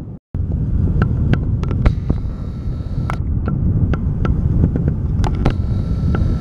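Wind buffeting the microphone, a steady low rumble, with many short sharp clicks scattered through it.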